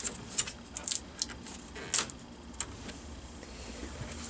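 Plastic screen bezel of a Dell Inspiron 15 5000 laptop being pried off by hand: a run of small sharp clicks and snaps as it pops loose from the screen assembly, the loudest about two seconds in, then quieter over the last second and a half.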